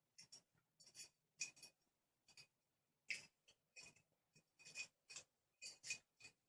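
Faint, irregular metallic clicks and light scrapes of a warded pick working inside a warded pancake padlock.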